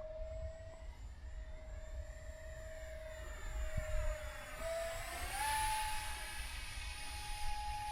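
Whine of a small RC jet's 40 mm electric ducted fans in flight, passing by with a sweeping, phasing sound. About five seconds in, the pitch rises and holds higher as the throttle is opened.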